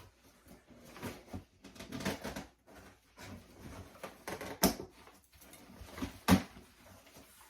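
Packaging being handled and opened by hand: irregular rustling and scraping, with two sharp snaps, a little past halfway and again less than two seconds later.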